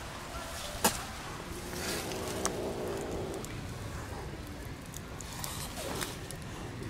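Young kittens, about 6 to 8 weeks old, mewing weakly over steady outdoor background noise, with a couple of sharp clicks.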